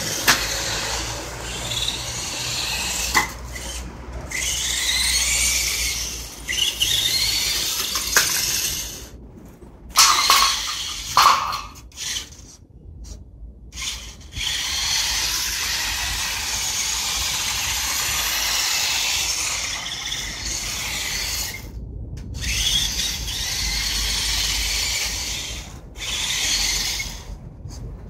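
KD Summit S600 RC monster truck's motor and gears whining, rising and falling in pitch as the throttle is worked, with several short stops.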